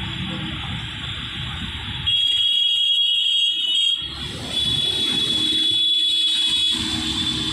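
A high, steady alarm-like tone starts about two seconds in, breaks off briefly near the middle and comes back, over a low rumble of street traffic.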